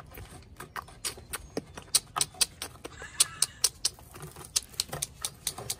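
A girl beatboxing: a quick, uneven string of sharp mouth clicks and short hissing pops, several a second.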